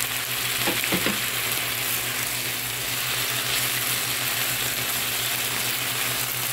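Chicken and mixed-vegetable filling frying in a nonstick pan with a steady sizzle while a silicone spatula stirs it, with a couple of light knocks about a second in.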